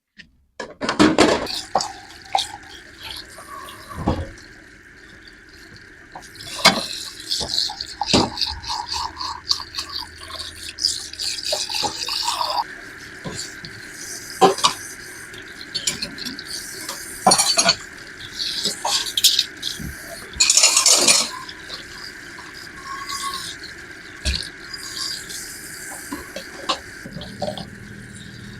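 Kitchen work: dishes, glassware and utensils clinking and clattering in irregular knocks, over a steady background tone.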